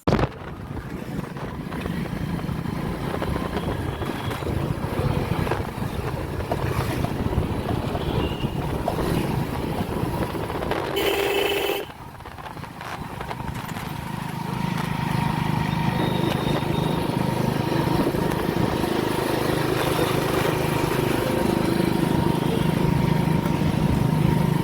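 A motor vehicle's engine running on a ride through road traffic, with a steady low drone and road noise. About halfway through a short different sound cuts in, the level drops briefly, then the engine builds up again.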